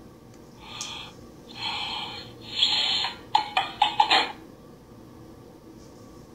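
Reward sound effects from an online math game played through laptop speakers after a correct answer: three short hissy swishes, then a quick run of four popping blips, all over within about four seconds.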